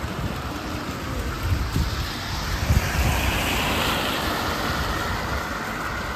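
A car passes on the wet, slushy road, its tyre hiss swelling to a peak a few seconds in and then easing off, over an uneven low rumble.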